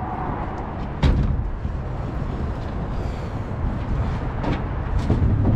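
Wind buffeting an outdoor microphone in a steady low rumble, with a sharp knock about a second in and a few more near the end.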